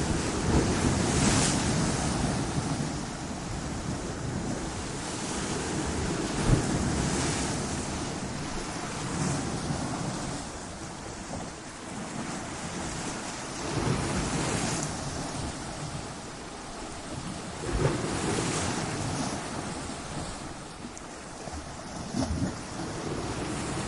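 Ocean waves breaking against coastal rocks in a continuous rushing wash, rising and falling as each wave surges in. A few stronger breaks stand out, the sharpest about six and a half seconds in and another near eighteen seconds.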